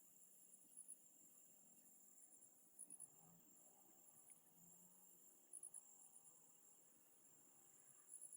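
Faint night insects: a steady high trill with a cricket chirping in short bursts every second or two.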